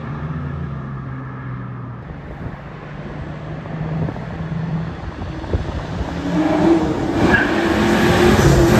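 Car engine running: its note drops over the first two seconds, then climbs as it revs or accelerates through the second half, loudest near the end. The car is likely the video's 1993 Ford Mustang Cobra with its 5.0 V8.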